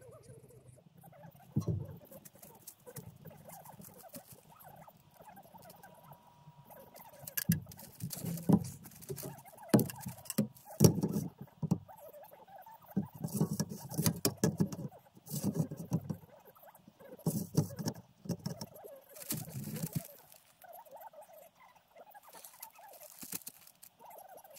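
Irregular crinkling and rustling of plastic vapor-barrier sheeting with light knocks, in uneven clusters that are busiest from about seven seconds in until around twenty seconds, then fainter.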